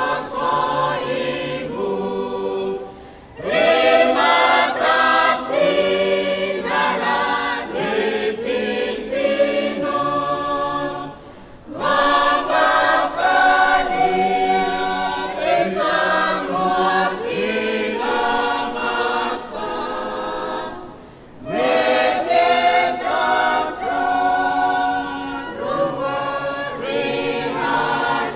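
A mixed church choir of women's and men's voices singing a hymn in Roviana a cappella, in harmony. The singing moves in long phrases broken by short breaths roughly every eight to ten seconds.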